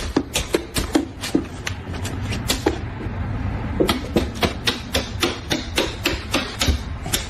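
A dog scratching and pawing at a door: quick, uneven clicks and knocks of claws on the door, several a second, over a low rumble.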